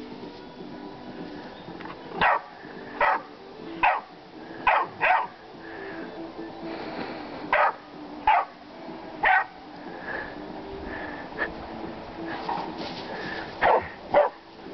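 Catahoula puppy barking at chickens in a wire pen: about ten short, sharp barks, singly or in quick pairs, with a gap of a few seconds after the middle.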